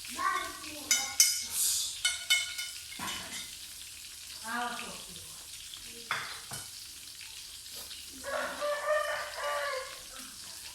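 Chickens calling, with a rooster crowing once about eight seconds in, over a faint steady hiss.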